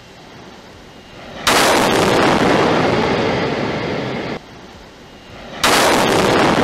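Explosion of SpaceX Super Heavy Booster 7 at its launch mount: the unplanned ignition of a methane-oxygen gas cloud during an engine flow test. A quieter hiss is broken by a sudden loud blast about a second and a half in, which rumbles on and cuts off abruptly. The blast is heard again, just as suddenly, near the end.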